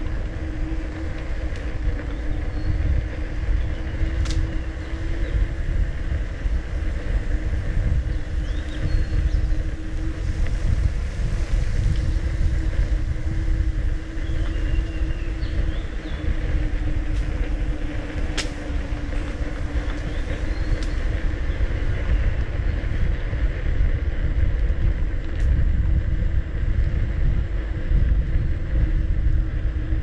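Wind rumbling steadily on the microphone of a camera moving along a park path with an electric unicycle, under a steady hum. A few faint bird chirps and a few brief clicks come through.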